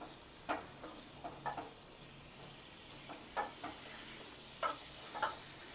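Spatula scraping and knocking in a kadai as boiled bottle gourd is stirred through the spices, about seven short strokes spread irregularly, over a faint sizzle.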